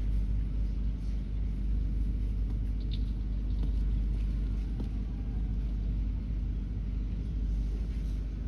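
Steady low rumble of wind buffeting the microphone, with a faint short high chirp about three seconds in.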